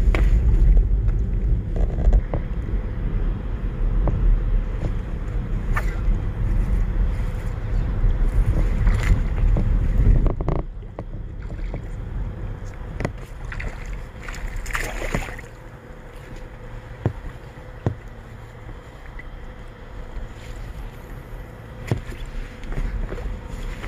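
Wind buffeting the microphone: a heavy low rumble for about the first ten seconds, then much lighter. Scattered small clicks and a brief rustle of handling near the middle as a bass is reeled in and landed.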